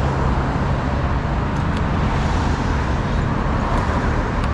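Steady road traffic on a busy multi-lane road: a continuous wash of car and bus engine and tyre noise, with a few faint clicks.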